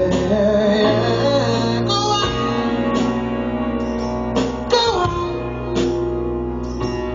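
Live acoustic band music: a male singer's voice over a strummed acoustic guitar, with a bass guitar holding steady low notes beneath.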